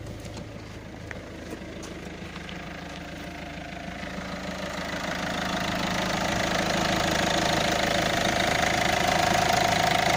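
Citroën 1.6 HDi 110 four-cylinder turbodiesel idling steadily with its normal diesel clatter, growing louder about halfway through as the microphone nears it. The tappet ticking is gone after new hydraulic tappets and rocker arms were fitted: a correct-sounding diesel.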